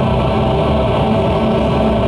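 Live band playing loud amplified music: a dense, steady wall of sound heavy in the low end, with no singing.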